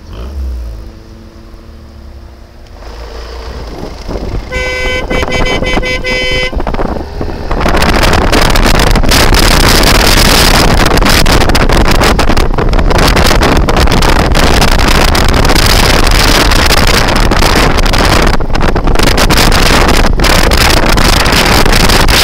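Scooter horn sounding one steady honk about two seconds long, a few seconds in. Then loud wind noise buffets the microphone for the rest of the ride.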